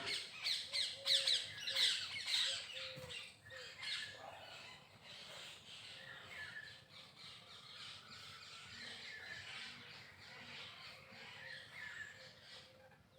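Birds calling: a burst of loud, harsh squawking calls in the first three seconds or so, then fainter, overlapping chatter.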